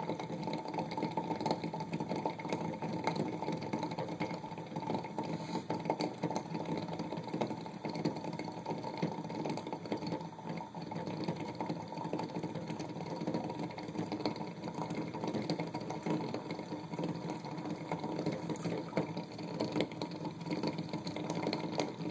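Water boiling hard in a corked Pyrex beaker, a steady bubbling rattle with many small pops, as steam is driven out through a hose into a second beaker of water.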